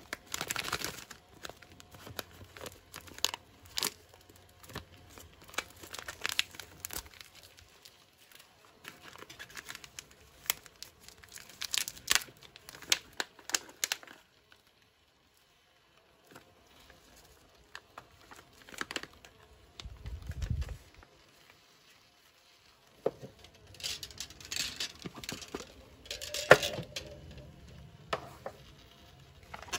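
A stiff plastic-and-foil MRE drink-powder pouch crinkling and tearing as gloved hands work it open: a run of short crackling rustles and tears, a pause, a low thud, then more crinkling with one sharp crack near the end.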